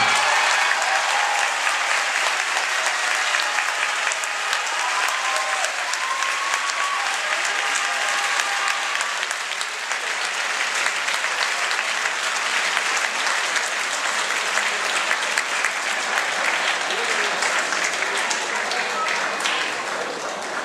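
Boxing hall audience applauding steadily at the end of the bout, with scattered shouts and calls from spectators over the clapping.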